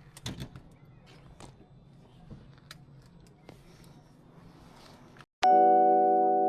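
Faint background with a few scattered clicks and knocks, then a sudden cut to a loud, sustained electric-piano chord of background music about five seconds in.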